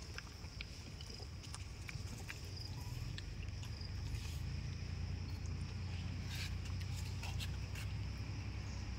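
Low, steady rumble on the microphone that grows slightly louder about two seconds in, with a faint steady high hiss and scattered soft clicks over it.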